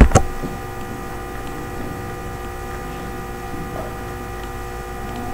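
Steady electrical mains hum picked up by the recording microphone, several steady tones stacked together, with one sharp mouse click just after the start.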